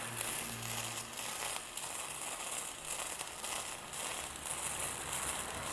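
MIG welding arc crackling steadily as a bead is run on thin stainless steel sheet.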